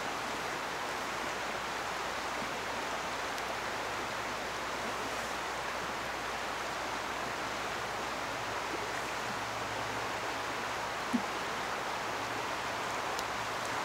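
River current rushing steadily over a riffle, an even hiss of moving water, with one brief soft tap about eleven seconds in.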